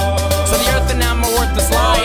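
A song playing as the soundtrack, with a heavy bass line and drum hits between sung lines.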